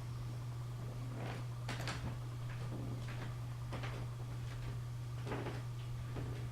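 A man snoring in his sleep: irregular short, rasping snorts in clusters every second or two, over a steady low hum.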